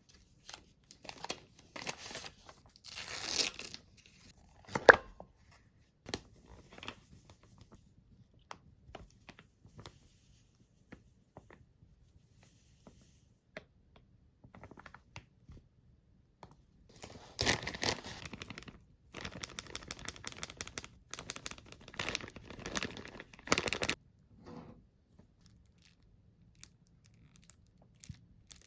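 Packaging being crinkled and torn in irregular bursts, with one sharp knock about five seconds in and a longer spell of crinkling and rapid ticking in the second half.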